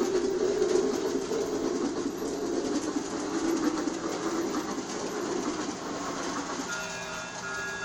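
G-scale toy train running on its track: a steady electric motor hum with wheel clatter. Near the end a tonal electronic sound of short repeated notes comes in over it.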